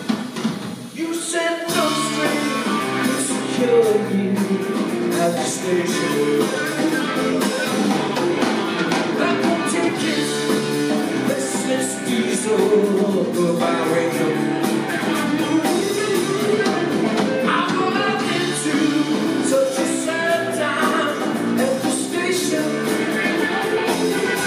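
Live rock band of electric guitar, electric bass and drum kit playing loud and steady, with a brief dip about a second in.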